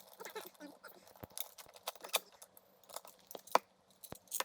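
Scattered light metallic clinks and knocks as an old hand-crank winch is worked loose from its wooden mounting boards, with one sharper knock about three and a half seconds in.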